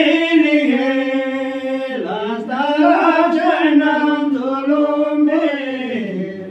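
Men's voices singing a slow chant together without instruments, in long held notes that step up and down in pitch. The phrase ends with a falling slide near the end.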